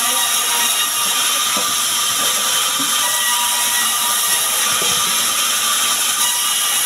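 Band sawmill running as a small sengon log is fed through the blade: a loud, steady hiss with a few thin high whining tones held throughout.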